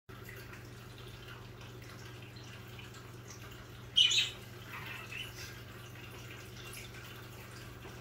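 Pet budgerigars chirping softly, with one loud, sharp high call about four seconds in, over a steady low hum.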